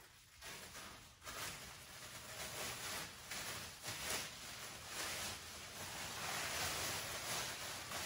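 Rustling and crinkling of a large black plastic sheet being pulled out, handled and shaken open, starting about a second in.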